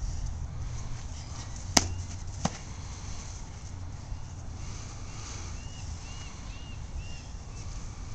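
Two sharp knocks of sparring weapons striking, a fighting stick and a Calimacil mace, about two-thirds of a second apart, the first louder. A low wind rumble on the microphone runs underneath.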